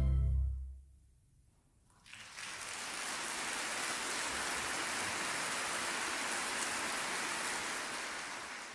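The last chord of violin and orchestra dies away within the first second. After a brief silence, audience applause starts about two seconds in and continues steadily, fading near the end.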